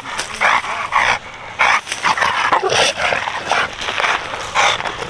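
A dog vocalising excitedly in quick, short bursts of barks and yelps, two or three a second. It is tied back and worked up by a toy it can see but can't reach.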